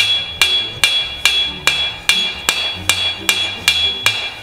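Farrier's hammer striking a steel horseshoe held on the edge of an anvil, about eleven even blows at roughly two and a half a second, each with a high metallic ring. He is pulling a toe clip on a concave shoe with the edge of the hammer.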